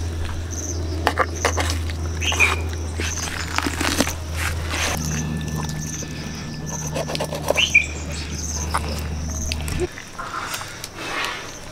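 Wet cutting and tearing as a large knife and hands work through the skin and flesh of a giant goonch catfish, with scattered small clicks and taps. A steady low hum runs beneath and stops suddenly about ten seconds in, and there are two short chirps.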